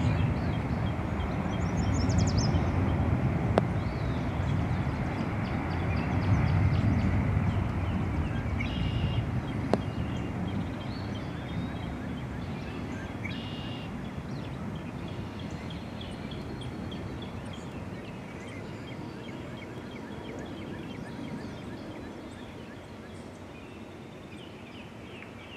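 Jet airliner's engines rumbling and fading steadily as the aircraft moves away, with faint bird chirps over it.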